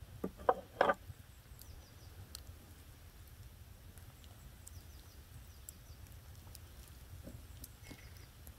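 Three light knocks of tableware handled on a wooden table in the first second, then quiet outdoor ambience: a faint low rumble with scattered faint high ticks.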